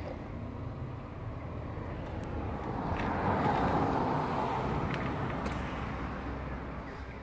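A Renault Trafic van's 1.6-litre diesel engine idling steadily. About three seconds in, a passing car's tyres hiss on the wet road, swelling and then fading.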